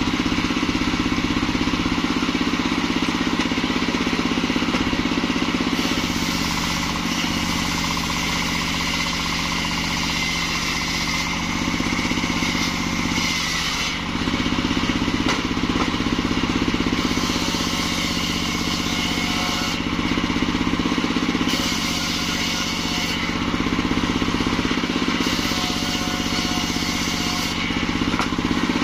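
Engine-driven circular sawmill running steadily, its large blade ripping lengthwise through a kantil (white champaca) log, the hiss of the cut coming and going several times over the engine's steady hum.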